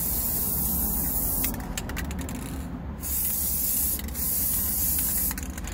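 Aerosol can of gold spray paint hissing in about four bursts with short breaks, with a few sharp clicks between sprays.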